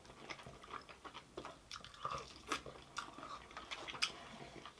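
Mukbang-style chewing close to the microphone while eating puri and curry: a string of small, irregular wet clicks and soft crunches.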